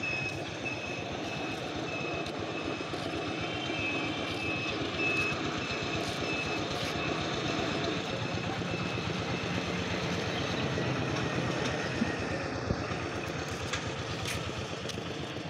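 An engine running steadily, with a string of short high beeps, about two a second, through the first seven seconds or so.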